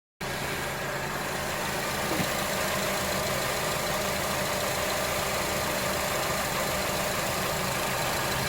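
Honda CR-V engine idling steadily, running with its newly replaced alternator.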